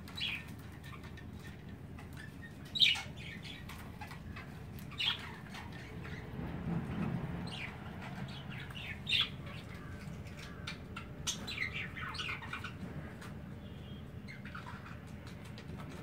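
Budgies chirping: scattered short, high chirps and squeaks, the loudest a little under three seconds in, over a low steady hum.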